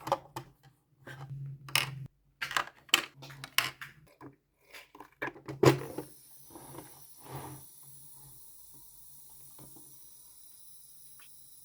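Small plastic toy refrigerator parts clicking, clinking and knocking as they are handled and set down, in quick irregular taps for about six seconds, then a faint steady hiss.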